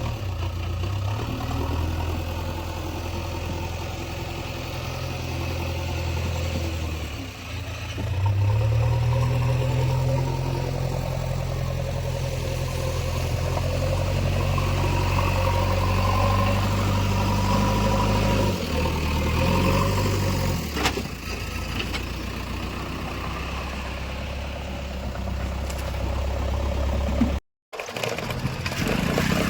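JCB 3DX backhoe loader's diesel engine running as the machine works, speeding up about a quarter of the way in and easing back down after about two-thirds. There is a brief dead gap near the end.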